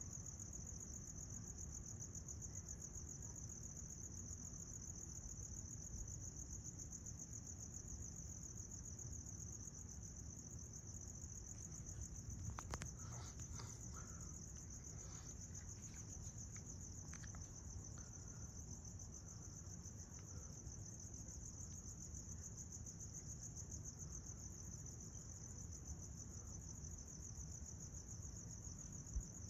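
Crickets trilling: a steady, fast-pulsed high trill that never breaks, with a faint low rumble beneath and a few soft clicks and taps about halfway through.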